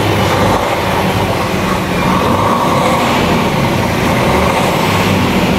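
DAF XG+ truck's PACCAR MX-13 six-cylinder diesel engine running steadily, heard close up at the front of the cab.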